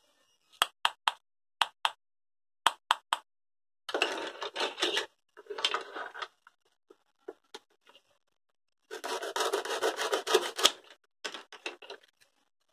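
Plastic toy food pieces clacking together in a few sharp taps, then the velcro joins of the toy halves tearing apart in several rasping rips, the longest lasting about two seconds.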